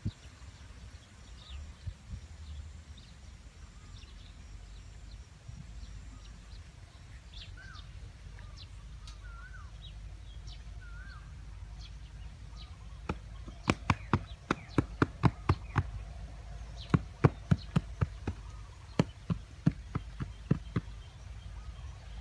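Outdoor ambience with a steady low rumble and a few short bird chirps. Starting about halfway through, a run of sharp knocks comes about two a second for some eight seconds from the man moving about on top of the earth-covered roof. The knocks are the loudest sound here.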